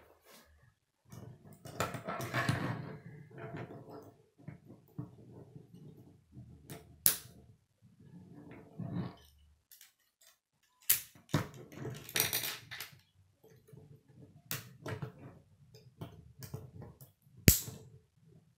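A plastic K'nex construction model being picked up, turned over and handled: irregular rattling and clattering of plastic rods and connectors, with a few sharp knocks, the loudest about a second before the end.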